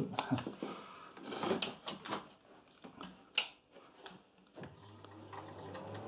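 Several clicks and knocks from handling the plug and switch. Then, about four and a half seconds in, a Mightymig 150 MIG welder powers up with a steady low mains hum, now that the fault has been traced to the plug.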